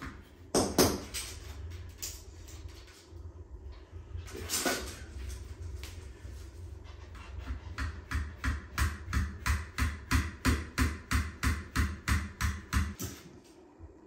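A hand tool working on a shower drain body: a sharp knock about half a second in, then in the second half an even run of short knocks, about four a second, for some five seconds.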